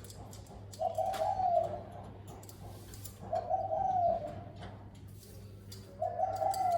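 Spotted dove cooing: three repeated coo phrases about two and a half seconds apart.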